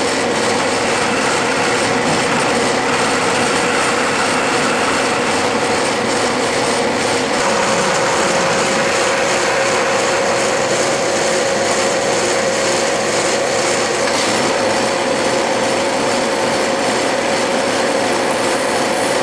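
Metal lathe running steadily, a four-jaw chuck spinning a rectangular aluminium block while a toolbit in a Diamond tool holder takes a facing cut across its end. Machine noise with a steady whine throughout.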